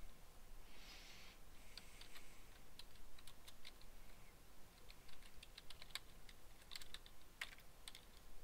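Typing on a computer keyboard: irregular keystrokes, coming more quickly in the second half.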